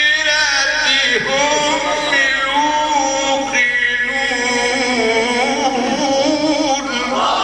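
A man chanting Quranic recitation in the melodic tajweed style, holding long notes with wavering ornaments in phrase after phrase.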